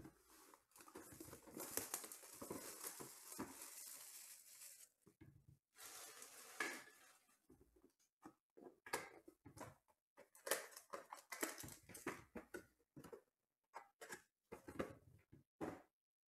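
Hands handling and opening a cardboard trading-card box and its contents: several seconds of rustling and sliding, then a run of light taps and crinkles.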